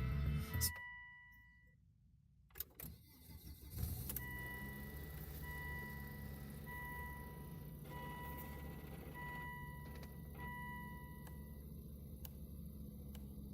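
Volvo XC90 starting: a click, then about four seconds in a steady low engine hum sets in, while a dashboard warning chime beeps about six times, roughly once a second, and then stops.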